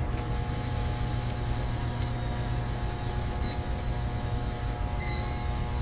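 Steady low drone of factory machinery running, with a few faint, light clinks about two, three and five seconds in.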